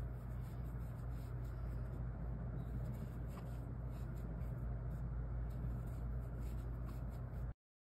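Soft scratchy rustling of medium-weight yarn drawn over a metal crochet hook as single-crochet stitches are worked, over a steady low hum; the sound cuts off abruptly near the end.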